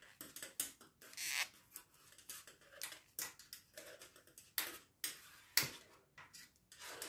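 Knitting needles clicking and scraping quietly as stitches are worked, in an irregular run of small ticks with a few brief rustles of yarn.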